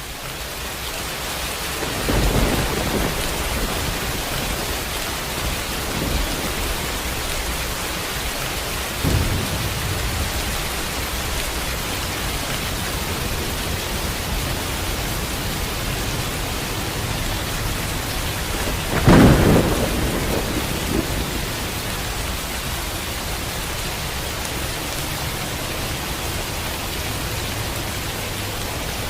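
Steady rain with thunder rumbling: a clap a couple of seconds in, softer rolls a few seconds later, and the loudest crack about two-thirds of the way through. The rain fades in at the start.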